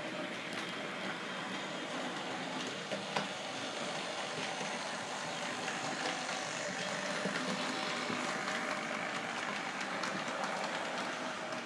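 HO-scale DC model trains running on the layout's track: a steady whirr of small electric motors and wheels rolling on the rails, with a few small clicks, the sharpest about three seconds in.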